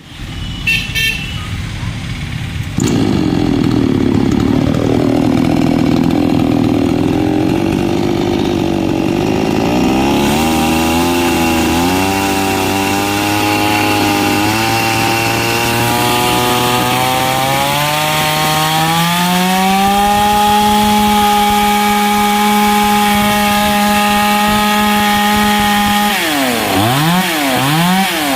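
A 52 cc two-stroke chainsaw engine starts about three seconds in and runs, its speed climbing in steps to a steady high whine. Near the end the engine speed drops sharply and recovers twice, as the chain is put under load.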